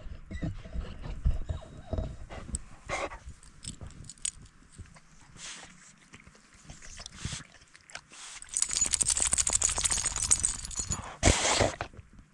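Shar-Pei dog plowing through deep powder snow close to the camera: irregular crunches and thuds of snow, then a louder, denser stretch of scuffing through the snow about three seconds before the end as the dog comes right up to it.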